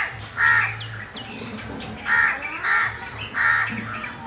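Birds calling: a loud, harsh call repeated about five times, mostly in quick pairs, with faint high chirps of smaller birds between.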